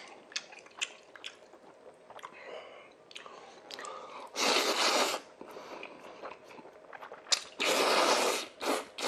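A person slurping sauce-coated instant noodles, two loud slurps of about a second each, the first a little over four seconds in and the second near the end. Between them comes wet chewing with small clicks of mouth and chopsticks.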